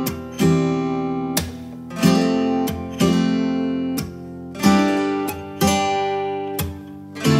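Background music: acoustic guitar strumming chords, with a fresh strum about every second and each chord ringing on between strums.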